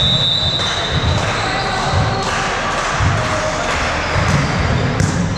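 A referee's whistle blows one steady blast of about a second. It is followed by a run of dull thuds of a volleyball bouncing on the sports-hall's wooden floor.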